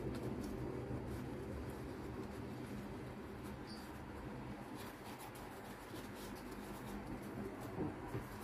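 Faint, scattered rustles and light taps of a large ebieba leaf being handled and folded around a scoop of rice, over a low steady hum.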